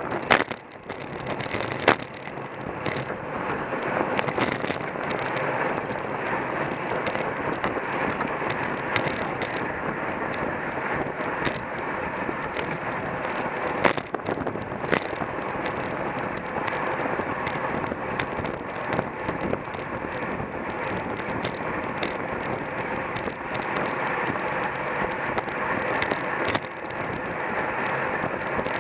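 Steady rush of wind and tyre noise on a camera mounted on a racing bicycle at speed, with a few sharp knocks from the loosely mounted camera shaking.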